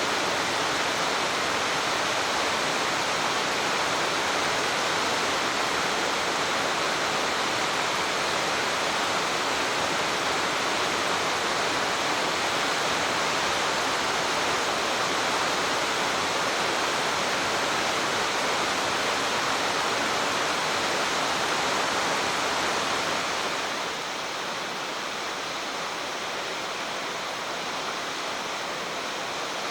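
Steady rush of falling water from a waterfall on the Oirase Stream, which gives way near the end to a quieter, softer rush of the stream's rapids.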